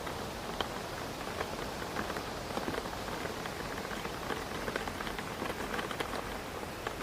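Steady rain pattering against a window pane, with many small drop ticks over a constant hiss of rain and wind.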